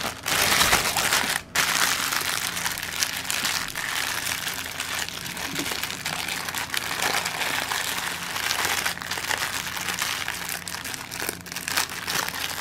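Thin plastic zip bags of diamond painting drills crinkling and rustling as they are handled, loudest in the first second or so, with a brief lull about a second and a half in.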